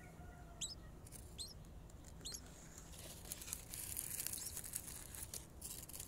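A nestling bird giving thin, high squeaks, each falling in pitch, roughly one a second. From about three seconds in, a rustling of dry nest grass and handling noise joins them.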